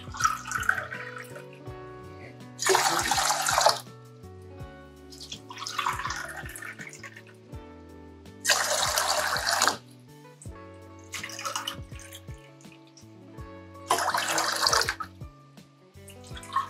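Water poured into a stainless steel pot one cupful at a time: three splashing pours of about a second each, spaced some five or six seconds apart, with softer water sounds between them. Background music plays throughout.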